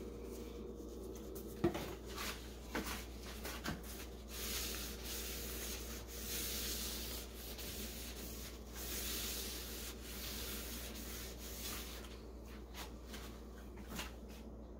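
A wet wipe rubbed back and forth along the underside of a wooden kitchen cabinet, a soft scrubbing that comes and goes in several swells, wiping the surface free of grease. Before it, a few clicks and rustles as the wipes packet is handled, the sharpest about two seconds in.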